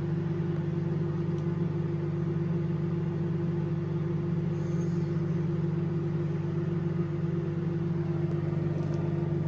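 Moulinex microwave oven running at full power, a steady hum with its fan. The magnetron is working and heating a mug of water.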